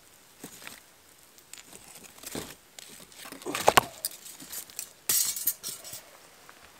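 Wire camp grill grate clinking and scraping against fire-ring rocks as it is lifted off the campfire and set aside: scattered metallic clinks, the sharpest about three and a half seconds in, and a short scrape a little after five seconds.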